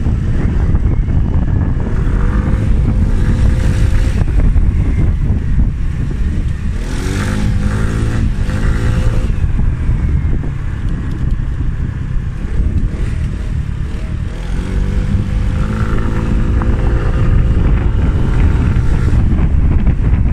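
Scooter engine running while riding, its pitch rising and falling several times as it speeds up and eases off, under heavy wind rumble on the microphone.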